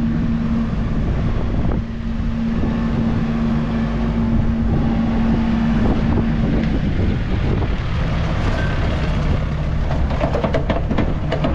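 A loader's diesel engine running steadily, its note dropping to a lower pitch about seven seconds in, with wind buffeting the microphone.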